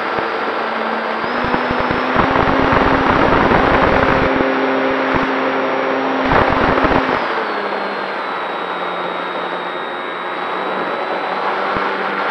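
Durafly Tundra RC plane's electric motor and propeller running in flight, a steady hum with a high whine; the pitch rises slightly about a second in and drops again around seven seconds as the throttle changes. Wind buffets the onboard microphone in rough gusts through the middle.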